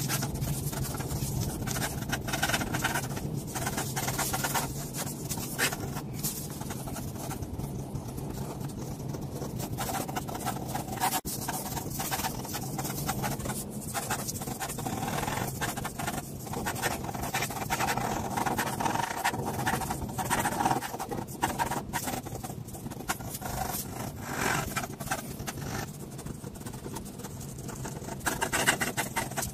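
Ink pen scratching on paper in quick, uneven hatching strokes, over a steady low hum.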